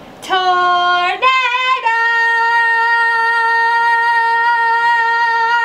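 A woman singing unaccompanied: a short note, a slightly higher short note, then one long high held note.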